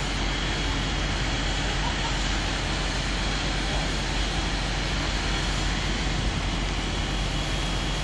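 Steady rushing drone of a compressed air foam system running: the fire appliance's pump and air compressor working while the hose line discharges foam onto a car. The noise holds even throughout, with no breaks.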